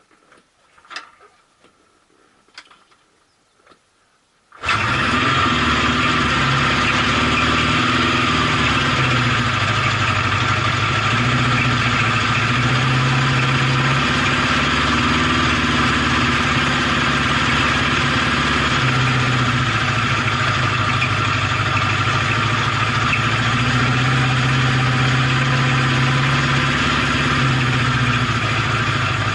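A few faint clicks, then about four and a half seconds in a Honda CB750K's air-cooled inline-four engine comes in suddenly, loud, and runs on steadily with a slowly wavering low note.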